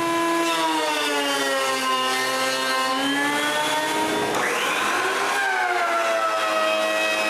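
Woodworking surfacing machine's motor and cutterhead whining steadily while flattening a walnut board. A little past halfway there is a second or so of rushing cutting noise as the blades bite the wood, and the whine sags in pitch under the load, then rises again.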